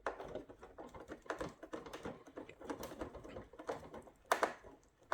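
Irregular light clicks and taps of small plastic parts and tools being handled, with one sharper knock about four seconds in.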